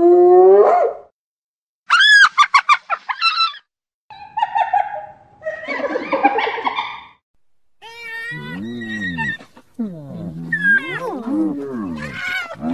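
Spotted hyena calls in several short takes separated by brief silences: a rising whoop, then a fast run of high-pitched notes about two seconds in, rougher calls after that, and in the last few seconds long calls that waver up and down in pitch.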